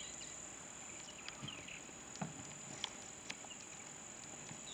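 Quiet background of insects, crickets or similar, making a steady high-pitched trill, with a few faint clicks between about two and three and a half seconds in.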